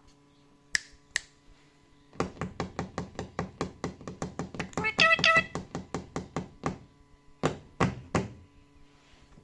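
Two sharp clicks, then a fast run of knocks, about five a second for some four seconds, with a brief pitched call-like sound in the middle; three more knocks follow near the end.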